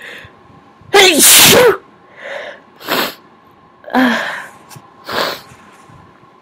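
A person sneezing in a run, brought on by tickling the nose with a Q-tip: one very big, loud sneeze about a second in, then several shorter sneezes with breaths drawn in between.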